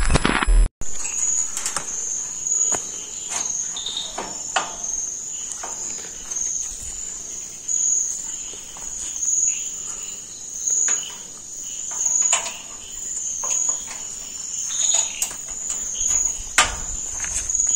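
Crickets chirping steadily at night, a continuous high trill that swells in regular pulses about once a second, with scattered sharp clicks and knocks over it. A brief synthetic sound effect cuts off at the very start.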